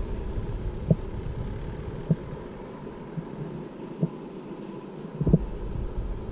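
Off-road SUV's engine running as a low rumble, its lowest part dropping away about two seconds in. Four dull thumps come through it, the last one the loudest.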